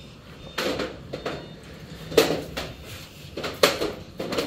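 Window frames being handled and shifted: a handful of irregular knocks and light clattering hits.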